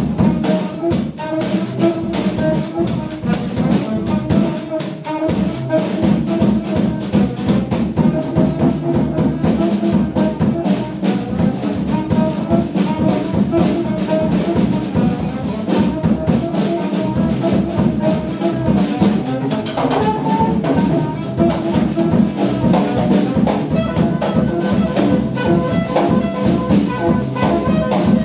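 A saxophone trio playing jazz live: a saxophone carries the melody over bass and a drum kit.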